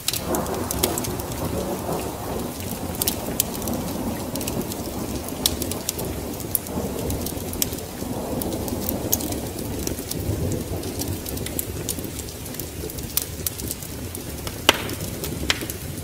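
Wood fire crackling, with scattered sharp pops, over a steady wash of rain and a low rolling rumble of thunder that swells at the start and again about halfway through.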